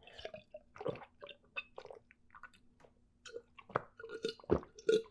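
A person gulping down a non-carbonated milk soda from a glass: a string of wet gulps and swallowing clicks, a few of them stronger after about three and a half seconds.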